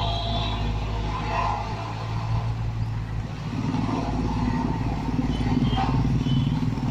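Engine of heavy road-construction machinery running steadily. From about halfway through, a second engine sound rises in and grows louder.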